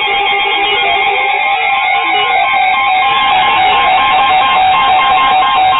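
Weather alert radios going off together: several electronic beeps pulsing at different pitches over a steady tone. This is the alarm for a new warning coming in on NOAA Weather Radio.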